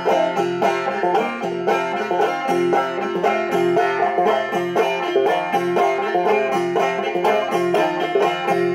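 Five-string banjo played clawhammer style: a quick, steady run of down-picked notes and brushes, while the fretting hand moves along the neck. The playing stops near the end.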